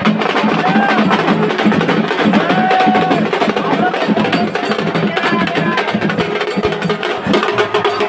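Dhol and nagada drums played in a fast, dense, continuous rhythm, with voices calling out over them now and then.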